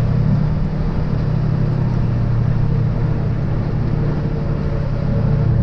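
MAN truck's diesel engine running at a steady pitch while the truck drives, a constant low hum.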